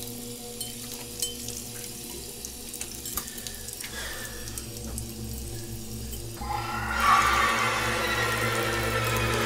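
Water running from a bathroom sink tap, splashed by hands washing a face. About six and a half seconds in, music swells in over it and becomes the loudest sound.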